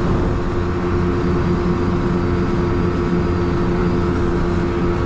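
Motorcycle engine running at steady revs while riding, a constant hum that holds one pitch throughout.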